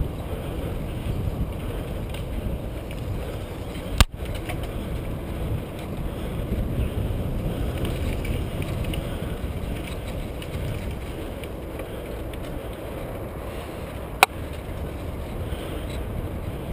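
Mountain bike rolling fast over a dirt forest trail: a steady low rumble of tyres and rushing air on the microphone, with two sharp knocks, about four seconds in and again about ten seconds later, as the bike and camera jolt over bumps.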